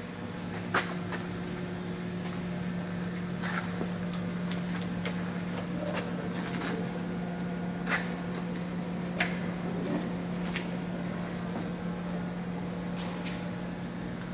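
A steady low mechanical hum, with a few light clicks and taps scattered through it.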